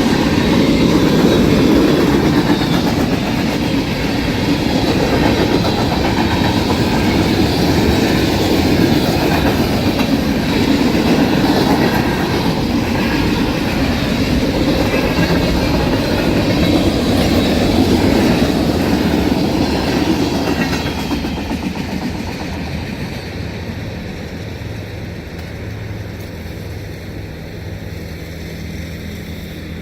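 CSX freight train rolling past a grade crossing. The noise drops off about 21 seconds in as the end of the train clears and it moves away.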